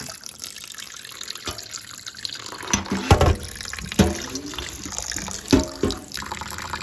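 Cold water running from a kitchen tap into a sink while raw chicken livers are rinsed, with a few splashes and knocks of the container or bowl a few seconds in.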